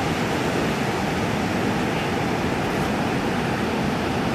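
Ocean surf breaking and washing through whitewater: a steady, even rush of noise.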